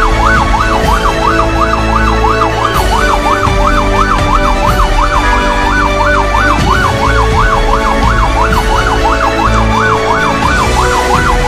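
Electronic siren-like yelp, a tone rising and falling rapidly about three times a second, over steady sustained tones and a low rumble.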